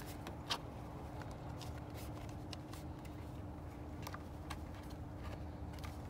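Scattered light clicks and rattles of a portable jump starter's clamps and cables being handled and hooked to the battery, the sharpest click about half a second in, over a faint steady hum.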